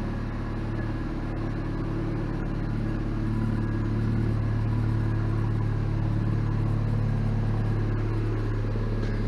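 A 1995 Mazda Miata's 1.8-litre four-cylinder engine idling steadily.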